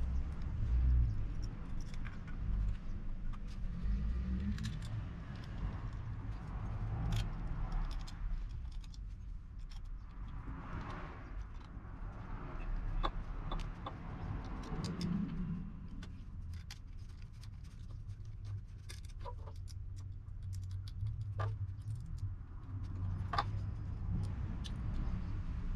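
Yamaha SR400's air-cooled single-cylinder engine running as a low rumble that rises briefly about halfway through, with light metallic clicks and rattles scattered over it.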